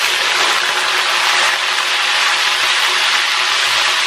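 Chicken livers frying in hot oil in a wok: a steady, loud sizzle.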